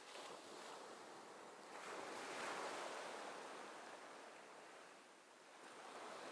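Soft rushing noise of surf, swelling and fading slowly: it peaks about two and a half seconds in, dips about five seconds in, then rises again near the end.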